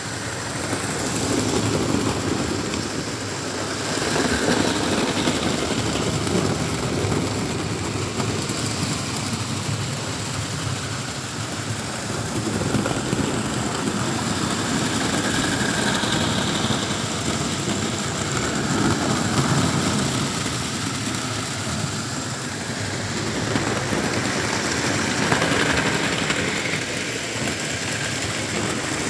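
Hornby OO-gauge model train running on the layout's track: a steady electric motor whir with wheels rattling over the rails, growing louder and fainter by turns.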